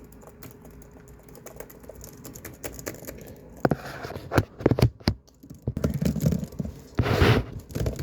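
Laptop keyboard being typed on: faint, light keystrokes at first, then fast, harder keystrokes from about three and a half seconds in, with a brief rustle near the end.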